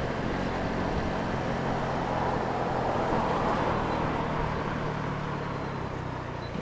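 Honda CB125R's single-cylinder 125 cc engine running while the bike is ridden, under a rush of wind and road noise that swells about halfway through and then eases off.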